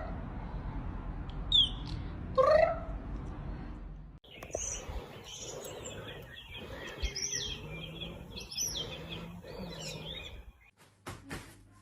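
A bird chirping, with many short high calls. Before that there is a sudden cut, preceded by a rising call over a noisy background.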